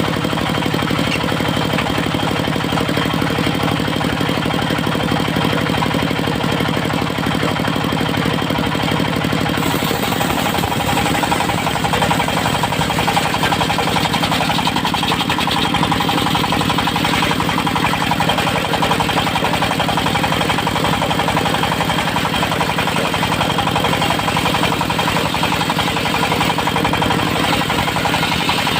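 Engine of a mobile circular-saw sawmill running steadily with a fast, even beat, its note changing about ten seconds in as the low hum drops and a harsher, hissier sound comes up.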